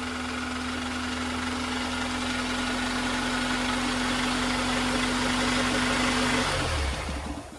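7th-generation Honda Accord engine idling steadily, then shut off about seven seconds in. It has just been started after sitting for almost three months and is run only briefly, with no coolant in it.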